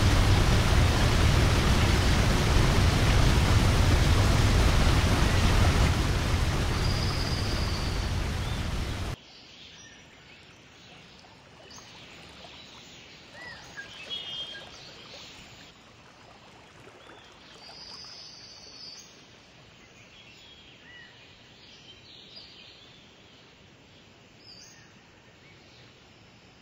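Steady, loud rain noise that cuts off abruptly about nine seconds in. It gives way to a faint outdoor ambience with scattered bird chirps.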